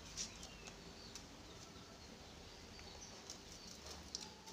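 Quiet ambience with a few faint, sharp clicks from hands handling something small on the table, and a few short, faint bird chirps in the background.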